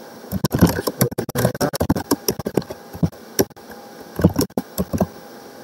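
Typing on a computer keyboard: a run of irregular key clicks, starting about a third of a second in.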